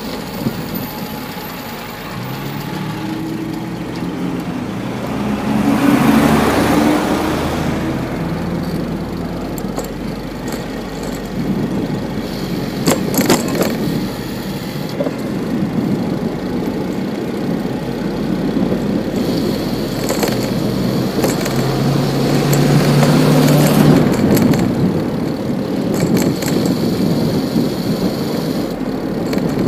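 City street traffic heard from a moving bicycle: steady road noise, with motor vehicles passing close twice, their engine tones stepping up in pitch as they pull away. A few sharp clicks and rattles are also heard.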